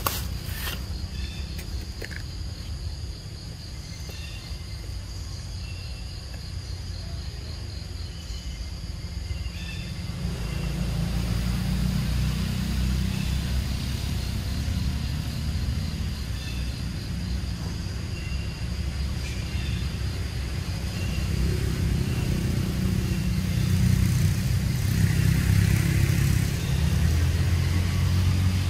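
Outdoor ambience dominated by a low rumble that swells about ten seconds in and again near the end, over a steady thin high whine and a few short faint chirps.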